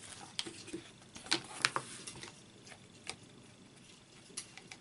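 Open wood fire crackling quietly: a few sharp, irregular snaps and pops over a soft hiss.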